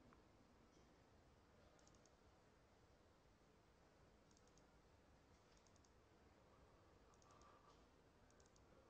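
Near silence with a few faint computer mouse double clicks, in small groups of two or three at irregular intervals.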